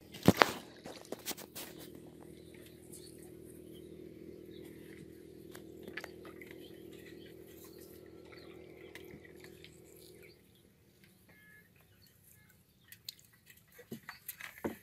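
Water sloshing with small clicks and knocks as hands work a fishing line tied to an aluminium pot in the water. Two loud sharp clicks come about half a second in. A steady low hum lies underneath and stops about ten seconds in.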